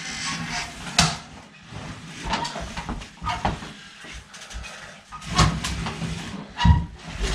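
Metal stepladder being handled and set up, giving irregular knocks and clatter: a sharp knock about a second in and heavier thuds near the end.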